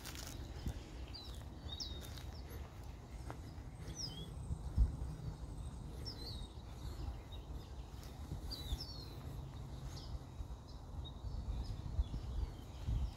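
Small birds chirping, short high calls that sweep downward, repeating every second or so over a steady low rumble, with one dull thump about five seconds in.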